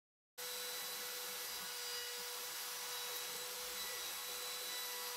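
Steady running of the Bosch trim router spindle on a small CNC machine, a constant whine over an even hiss. It cuts in abruptly shortly after the start and holds unchanged.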